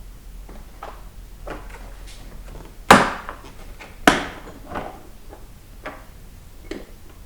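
A cheap plastic mechanics tool case being handled with loose sockets and tools inside: light clicks and rattles, with two sharp knocks about three and four seconds in.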